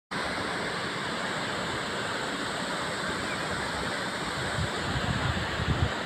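Waterfall pouring into a rock pool, a steady even rush of water, with a few low thumps near the end.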